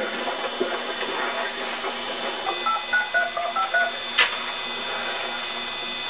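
Touch-tone telephone keypad being dialled: a quick run of about seven short beeps, each a two-tone chord, followed about half a second later by a sharp click.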